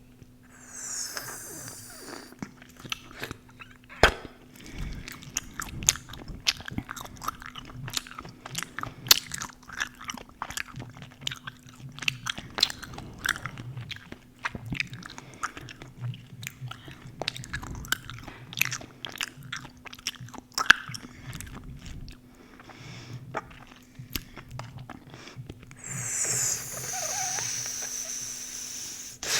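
Close-miked gum chewing: irregular wet smacks and clicks of a mouth working gum, with a longer hissy stretch near the end.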